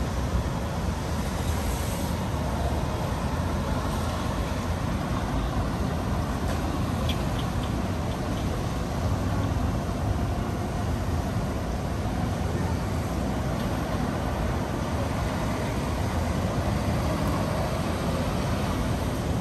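Steady city street traffic noise: cars, trucks and buses passing in a continuous low rumble.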